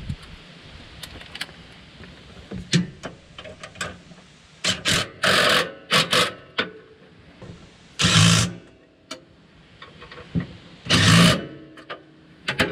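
DeWalt cordless impact driver running in several short bursts, about five, tightening the bolt on the Gator bed's prop rod mount, the bursts near eight and eleven seconds in the loudest. Light metal clicks of handling the tool and rod fall between the bursts.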